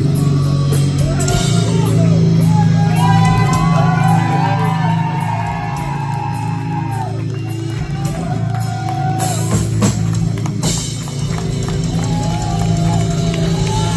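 Heavy metal band playing live, heard from the crowd: held distorted guitar and bass chords, drums, and a melody line bending in pitch above.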